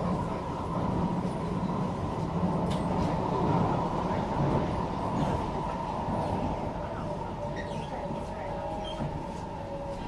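Interior noise of a Singapore MRT train car running between stations: a steady rumble of wheels and running gear on the track. A faint motor whine comes in during the second half.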